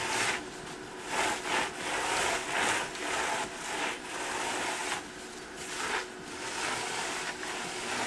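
A cloth rag wiping across an oily perforated aluminium fixture plate, in repeated rubbing strokes.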